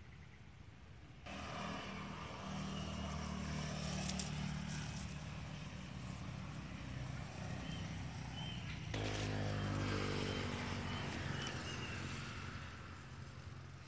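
Road traffic passing: a motor vehicle's engine hum comes in suddenly about a second in. A second, louder vehicle with a rising engine note passes about nine seconds in and fades near the end.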